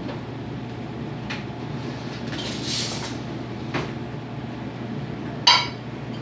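Kitchenware being handled over a steady low hum: light knocks, a brief hiss about halfway, and a sharp ringing clink of a cup or dish about five and a half seconds in.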